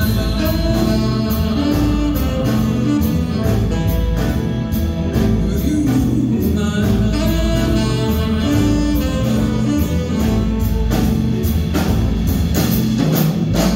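A small jazz combo playing live: piano, saxophones, upright bass and drum kit, with steady drum and cymbal strokes under the melody.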